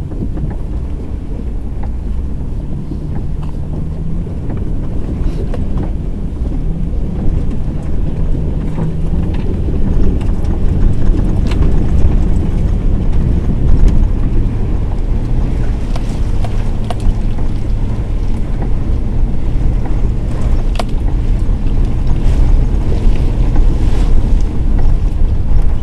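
Truck engine running as the truck drives through floodwater, with wind rumbling on the microphone; the sound grows louder about ten seconds in.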